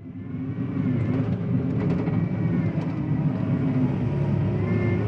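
John Deere 333E compact track loader's diesel engine running steadily while it works, fading in over the first second, with a few light clicks.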